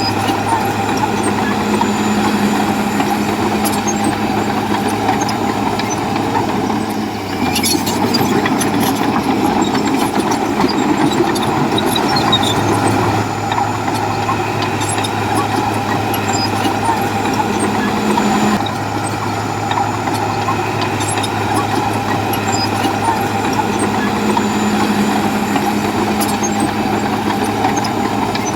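Heavy diesel engine of a bulldozer running steadily at work, its note changing about seven seconds in and again about eighteen seconds in as the load shifts.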